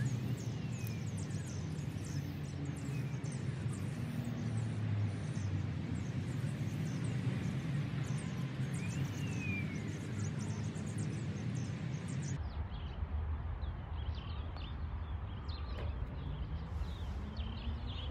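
Outdoor evening ambience: many small birds chirping and calling over a steady low rumble. About twelve seconds in the sound changes abruptly and the birdsong thins out.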